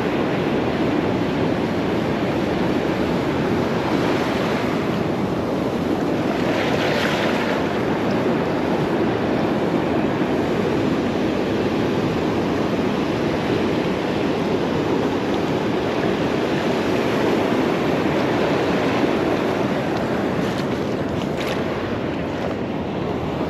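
Surf washing onto a beach in a steady wash of waves, with wind on the microphone. A brief louder hiss comes about seven seconds in.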